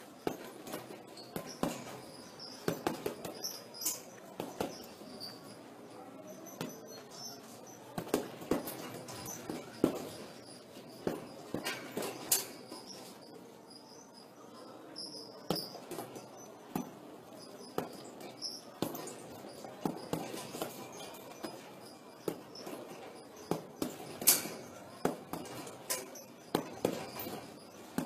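Gloved punches landing on a hanging heavy punching bag, in irregular flurries with short pauses between them.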